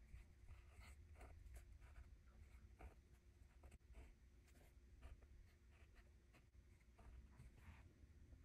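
Faint scratching of a Noodler's Konrad flex-nib fountain pen on journal paper as capital letters are written, a quick run of short strokes.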